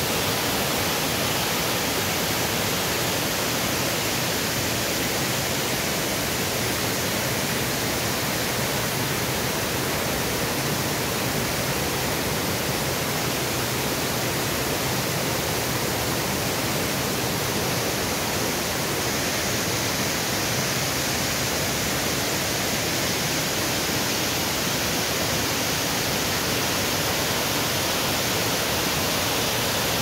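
Waterfall pouring into a rocky pool and river, a steady rush of water that does not let up.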